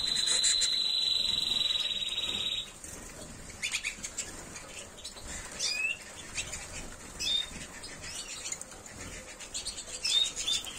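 Timbrado Español canaries in a flight cage: one sings a steady, rapid rolling trill that stops about two and a half seconds in, followed by scattered short chirps and calls.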